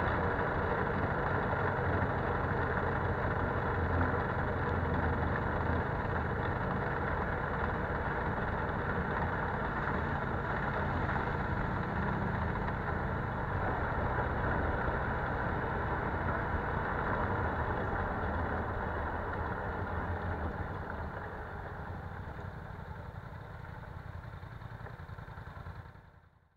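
Polaris Sportsman 570 ATV's single-cylinder engine running steadily while riding a dirt trail. It grows quieter over the last several seconds as the ATV slows to a stop, then the sound cuts off abruptly near the end.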